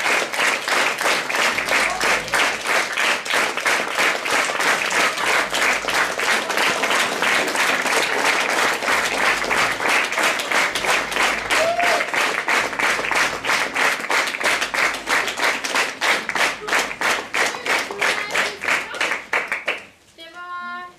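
Audience applauding, the clapping falling into an even shared beat in the second half and stopping abruptly about a second before the end, where a voice begins.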